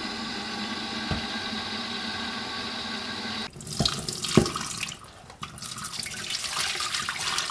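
Tap water running into a stainless-steel bowl lined with wet gauze, submerging the bean sprouts. About halfway through, the sound changes abruptly and a couple of knocks are heard. The bowl is then tipped and the water pours off over its rim into the sink, splashing.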